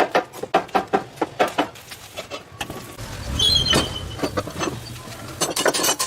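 Workshop tool noise: a quick run of sharp knocks and taps, about four a second. About three seconds in comes a short rush of scraping noise with a low rumble, and more quick knocks follow near the end.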